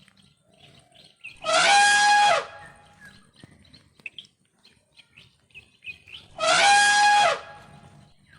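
A bird calling loudly twice, about five seconds apart. Each call lasts about a second, rises briefly at the start and falls away at the end, with faint chirping in between.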